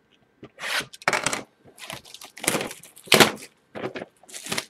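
Plastic shrink-wrap being torn and peeled off a sealed Panini Absolute football card box, in irregular crackling bursts as the box is handled.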